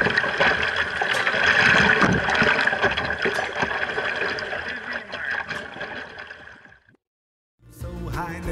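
Water splashing and rushing against the bow of a plastic kayak moving through choppy river water, fading away about two seconds before the end; after a moment of silence, music begins.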